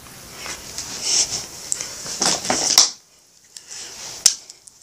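A marker scribbling on paper in short, uneven, scratchy strokes, which stop about three seconds in; a single sharp tap follows near the end.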